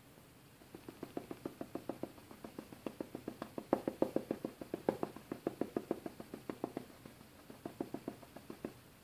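Paintbrush rapidly dabbing against the painting surface, about six light taps a second, while stippling the leaves of a bush. The taps pause briefly about seven seconds in and stop near the end.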